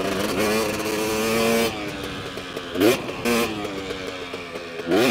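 KTM 250 SX two-stroke motocross bike's engine being ridden hard: held at high revs, then eased off after about a second and a half, with a quick rev blip near the middle and the throttle opening again at the end.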